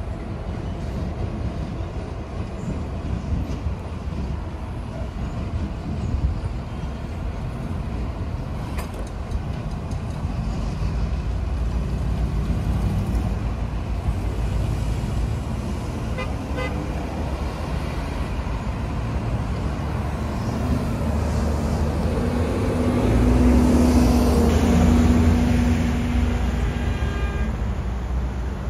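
Road traffic: cars and trucks passing with a steady low rumble of tyres and engines. About three quarters of the way through, a louder vehicle passes with a steady engine drone.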